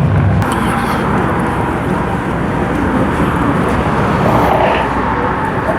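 Steady outdoor noise of passing road traffic, a rough even rumble with no clear tone. A low hum cuts off abruptly about half a second in.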